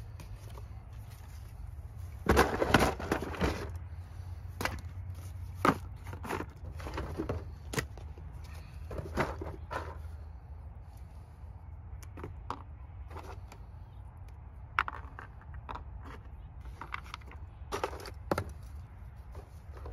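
Handling noises of a crack repair kit being unpacked: rustling, clicks and knocks as plastic injection ports, foam cartridges and a cardboard sheet are picked up and set down on gravel, with the busiest clatter about two to three and a half seconds in. A steady low hum runs underneath.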